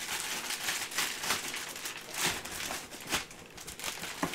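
Inflatable air-column plastic packaging crinkling and rustling as it is handled: a continuous run of quick crackles, with a few louder crunches.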